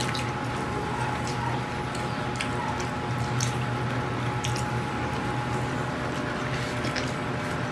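Close-up eating sounds of stir-fried pork intestine being chewed: wet squishing and smacking with many short clicks, over a steady low hum.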